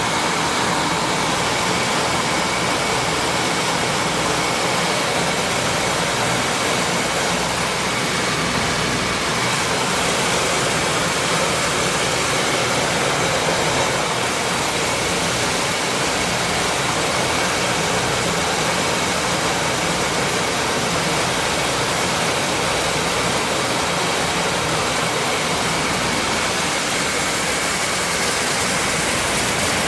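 Maize milling machine running steadily, a loud even mechanical noise with a faint steady high whine through it.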